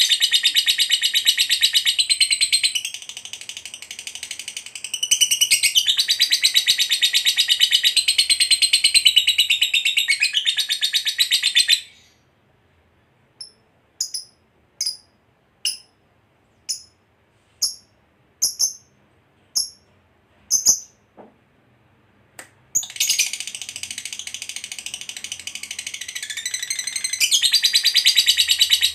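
Lovebird giving its long, rapid chattering trill, the ngekek panjang that Indonesian lovebird keepers prize in a fighter bird. The trill breaks off about twelve seconds in. About a dozen short single chirps follow, roughly two a second, and then the rapid chattering starts again near the end.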